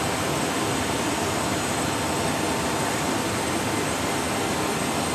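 Steady jet-aircraft engine noise of a C-17 Globemaster III, heard inside its cargo hold as an even rushing roar with a faint high whine.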